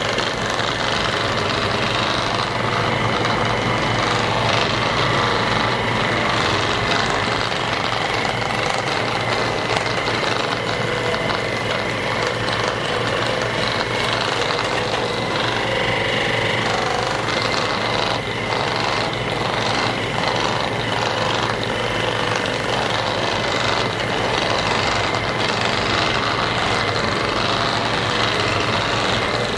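Percussion massage gun running steadily with a constant buzz.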